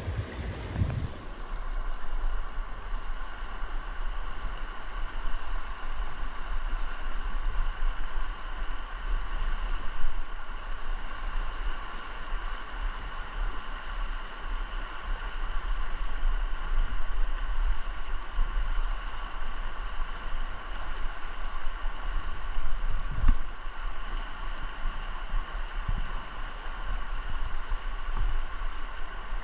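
Shallow river rushing steadily over rocks and riffles, with a low rumble underneath and a few dull knocks.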